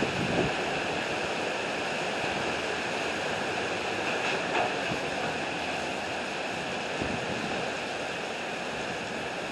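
Heavy rain pouring down in a steady, unbroken downpour from a sudden thunderstorm.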